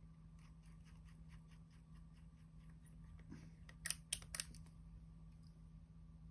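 Small precision tools clicking on an iPhone as its two bottom screws are fitted: faint, even ticks about four a second, then a quick cluster of sharp clicks about four seconds in.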